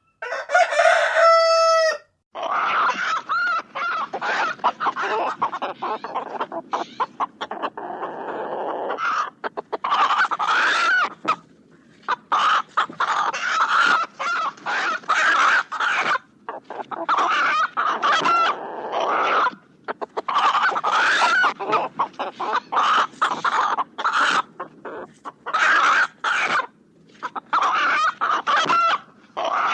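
Roosters crowing and chickens clucking: one clear, loud held crow at the start, then after a brief break a flock of many overlapping crows and clucks coming in bursts.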